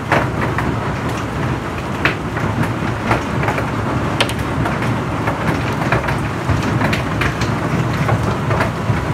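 Hailstorm: a dense, steady clatter of hailstones pelting down and striking the ground and building, with louder single hits standing out every second or so.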